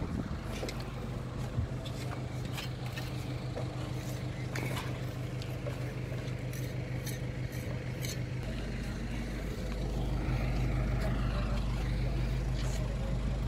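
An engine hums steadily on a construction site, with scattered sharp clicks and knocks of hand tools over it; it grows a little louder about ten seconds in.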